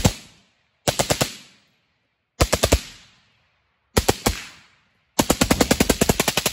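Suppressed 7.5-inch 5.56 piston AR short-barrel rifle with a SilencerCo Saker K, fired fast through a Franklin Armory AR-C1 binary trigger, which fires once on the pull and once on the release. It fires short rapid strings of about four or five shots each, roughly a second and a half apart, then a longer string of about a dozen shots near the end.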